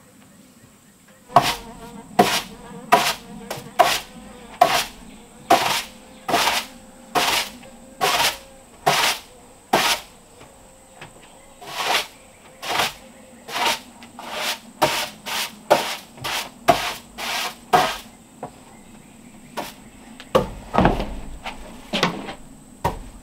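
Straw broom sweeping rough-sawn wooden planks: a short swish about once a second, with a pause of a couple of seconds near the end.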